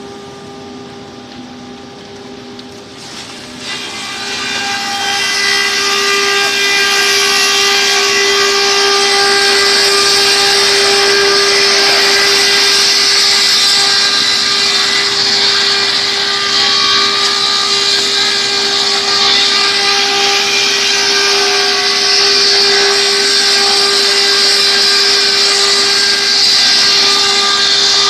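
Veneer sawdust mill (wood crusher) running with a steady whine while veneer strips fed in on its conveyor are ground into sawdust. The grinding noise swells about four seconds in and then stays loud.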